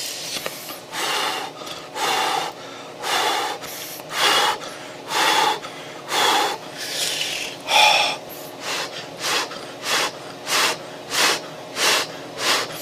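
A man huffing short breaths in and out through his mouth while eating hot stir-fried seafood noodles, about one breath a second at first and quicker near the end.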